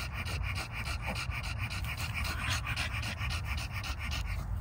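American Bully dog panting rapidly, several quick breaths a second, tired out; the panting eases about four seconds in.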